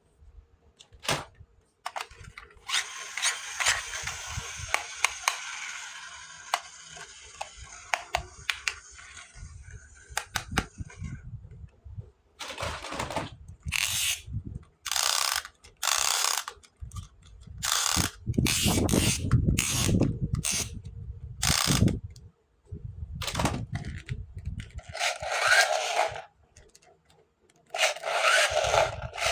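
Plastic toy parts and packaging being handled: a stretch of rustling, then a run of sharp clicks and knocks, with more clattering near the end.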